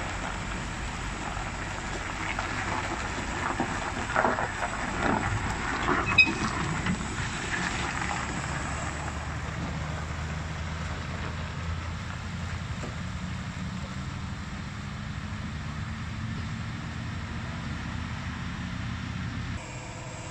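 Diesel engine of a heavy prime mover, a non-turbo engine, running as it tows a lowboy trailer away on a dirt track. Between about four and seven seconds in there are several knocks and rattles and one short sharp squeak, the loudest moment, before the engine settles back to a steady drone.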